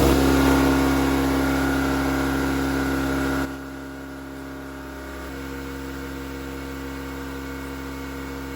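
Husky electric air compressor running steadily, with its tank and air-line valves open for break-in, so the new motor and pump spin without building pressure. The steady hum gets noticeably quieter about three and a half seconds in.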